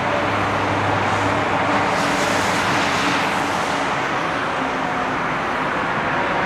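Steady rushing jet-engine noise from a Singapore Airlines Airbus A380's four Rolls-Royce Trent 900 turbofans as it rolls along the runway.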